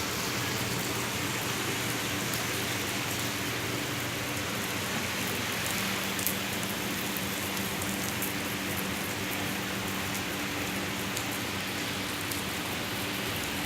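Heavy rain falling steadily, with scattered sharp drop ticks and a faint steady hum underneath.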